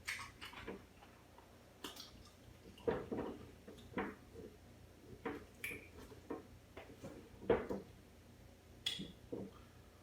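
Close-miked chewing with wet mouth smacks and clicks, coming irregularly a few times a second.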